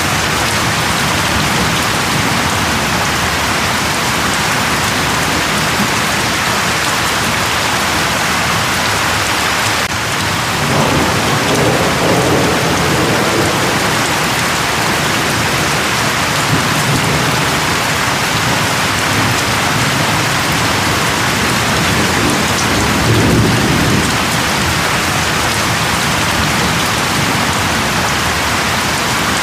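Steady rain falling. Low rumbles of thunder swell twice, about a third of the way in and again past three quarters of the way.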